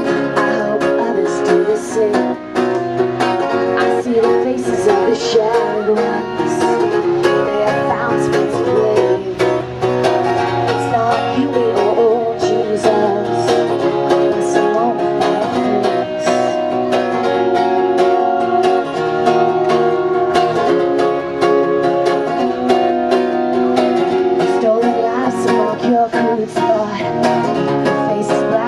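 A live band playing a song, with quickly picked plucked strings and singing.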